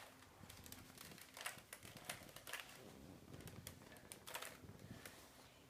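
Rubik's cube being turned quickly by hand: faint, irregular plastic clicks and clacks as the layers are twisted.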